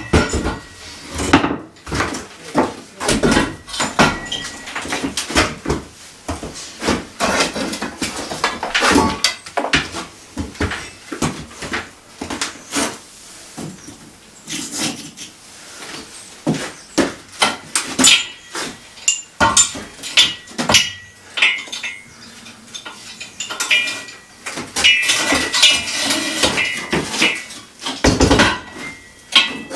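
Steel Acrow props clanking as they are handled, stood up and adjusted: repeated sharp metal-on-metal knocks and rattles, with a high ringing now and then.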